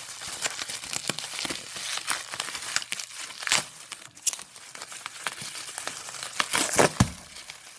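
Packaging wrapped around a bundle of comics being crinkled and torn open by hand: a continuous crackling rustle, with louder tears about halfway and again near the end.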